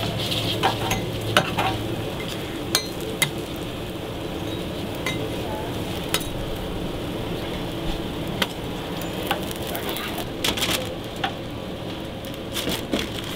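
Burger patties sizzling on a steel flat-top griddle, with a metal spatula and knife clinking and scraping against the plate many times.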